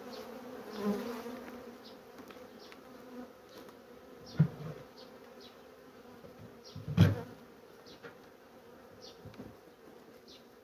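Honeybees buzzing over an open hive, a steady hum with single bees flying close past. Two short knocks break in, about four and seven seconds in, the second louder.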